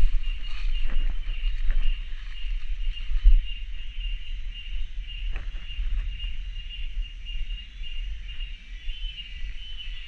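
Steady, high-pitched chorus of cicadas. Several short crunches and knocks, mostly in the first two seconds and once more around five seconds in, over a constant low rumble on the microphone.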